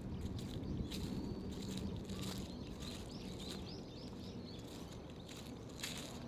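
A small bird sings a quick run of about seven repeated arched chirps about three seconds in, after a thin whistled note earlier on. Footsteps on a path sound under it, over a steady outdoor background hum.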